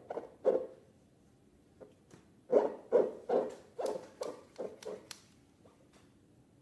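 Slime being worked by hand: a quick run of short squishes, two right at the start, then about three a second from about two and a half to five seconds in.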